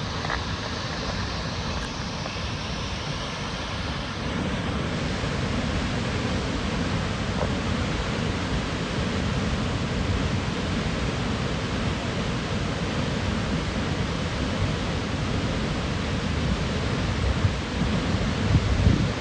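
Waterfall water rushing in a steady, even hiss, with a few louder low bumps near the end.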